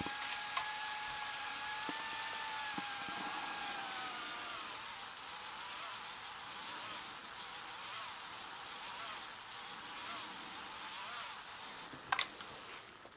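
LEGO Technic electric motor and gear train driving the truck model's stabilizing-leg mechanism, running with a steady whine that sags in pitch and fades about four seconds in, leaving a fainter wavering whir. A sharp click near the end.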